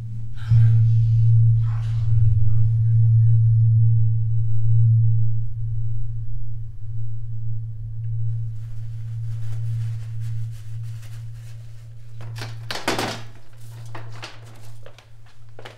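A loud, low, steady droning tone from a horror-film score, with a brief harsh noisy burst about thirteen seconds in.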